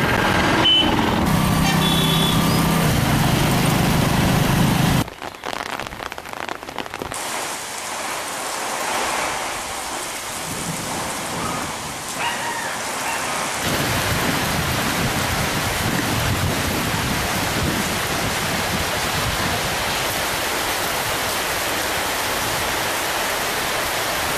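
A news jingle plays for about the first five seconds. Then heavy rain falls steadily, growing louder about halfway through.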